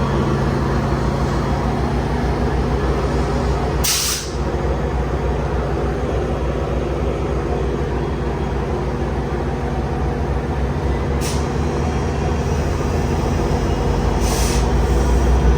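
Freight train passing close by, a steady rumble of rail cars rolling on the track. Short hisses come about 4 seconds in, about 11 seconds in and near the end.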